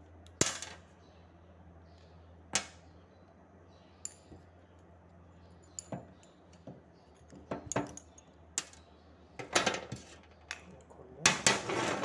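Sharp metallic clicks and clinks of a steel spanner on a limit switch's lever arm and housing as it is loosened to open the switch. The knocks come singly, a second or two apart, then bunch into a quick rattling near the end.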